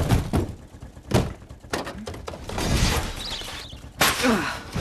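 Heavy luggage trunks and a birdcage being flung out of a car's boot and thudding onto the ground: a series of separate thuds, the strongest about a second in and near the end.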